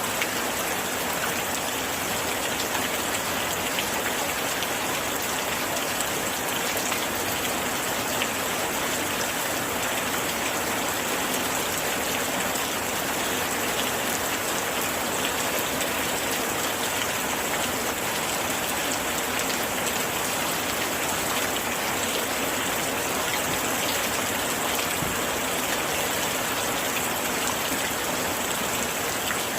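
Steady rain falling against window glass: an even hiss with many small drop ticks.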